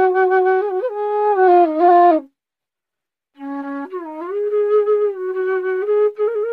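Background music: a slow solo flute melody with long held, gently bending notes, in two phrases with a pause of about a second between them.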